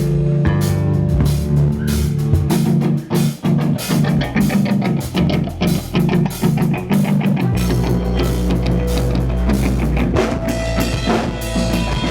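Rock band playing live: a drum kit beat with electric guitar.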